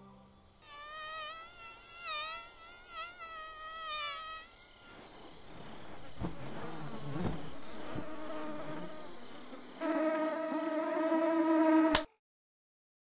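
Insect ambience: a mosquito whining with a wavering pitch over evenly spaced cricket chirps, then a steady buzzing that grows louder and cuts off suddenly.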